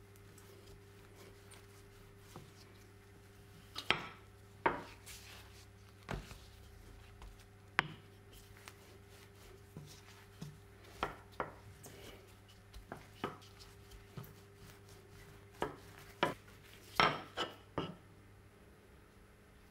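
Kitchen work: irregular light knocks and clinks of utensils or dishes on a work surface, about fifteen spread unevenly through the span, over a faint steady hum.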